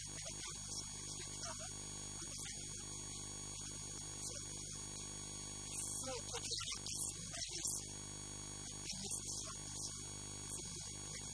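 Steady electrical mains hum, with a man's speech coming through it at times.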